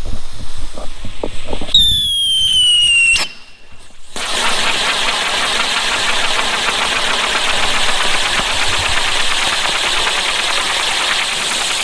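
Spinning wheel firework nailed to a tree, burning: crackling at first, then a whistle falling in pitch for about a second and a half, and after a short lull a steady, loud hiss of spraying sparks.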